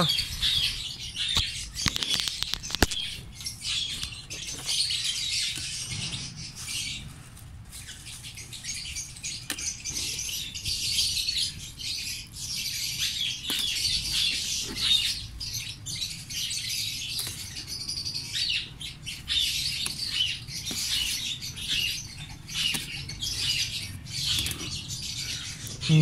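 Many small birds chirping and chattering continuously. Scattered clicks and rustles come from mint stems being picked by hand.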